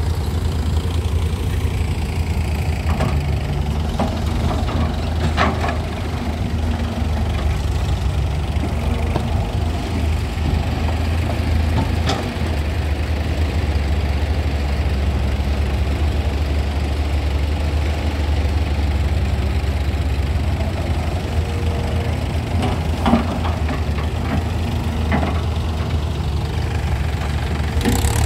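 Diesel engines of farm tractors and a Hyundai 210 tracked excavator running steadily with a low drone. A few scattered clanks sound over it.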